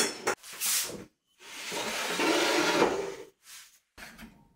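Rustling and rubbing handling noises: two short rustles, then a longer scraping rustle lasting about two seconds, then a few faint ones.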